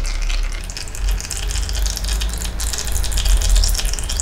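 Used engine oil pouring in a steady stream out of the Kawasaki KX450F's crankcase drain hole into a catch container as the engine drains, over a steady low rumble.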